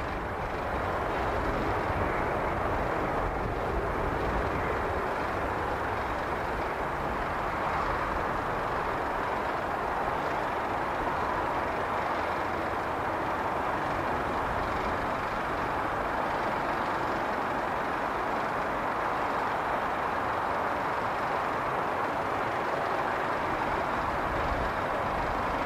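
Jet airliner engines running, a steady even rush of noise that holds at one level throughout.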